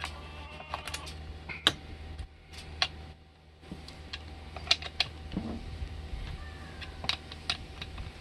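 Scattered sharp metallic clicks and clinks from a T-wrench on the bar nuts and the saw chain being handled while the chain tension is set on a new Salem Master 6220G chainsaw, its engine not running.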